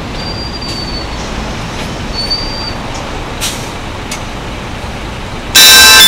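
Steady city traffic noise with two short high squeals. About half a second before the end, the Peace Bell tower's cluster of bells starts ringing loudly, many tones at once, beginning the 7 p.m. chime.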